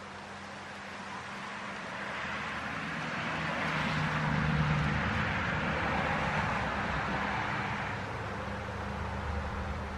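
A vehicle passing by: a rushing noise with a low engine hum that builds to a peak about halfway and then fades, over birch leaves rustling in the wind.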